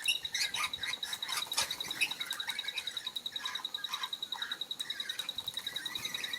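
Flock of king parrots and lorikeets giving short soft chirps and calls while feeding, with a few sharp clicks. A steady, high-pitched pulsing tone runs underneath.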